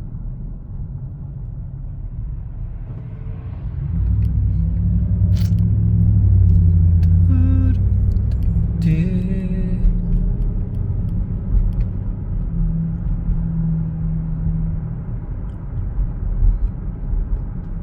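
Car engine and road rumble heard from inside the moving car's cabin, swelling louder about four seconds in.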